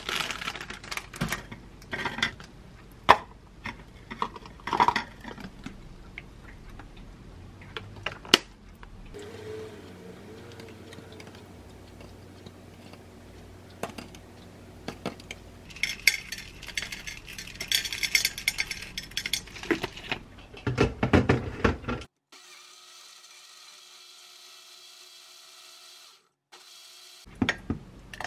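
Kitchen food-prep sounds with no speech: toast slices and cut figs set down on a ceramic plate with light taps and clinks, a few scattered handling noises, and near the end green juice poured from a blender jar into a glass.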